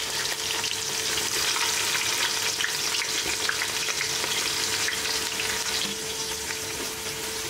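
Freshly added sliced onions sizzling in hot oil with whole spices in a large pot, a steady dense crackle of fine pops.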